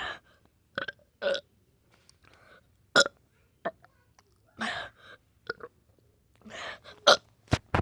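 A person's short, repeated burps, about a dozen of them at uneven intervals.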